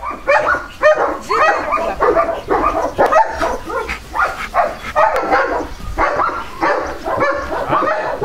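A dog barking and yelping over and over, about two to three short calls a second.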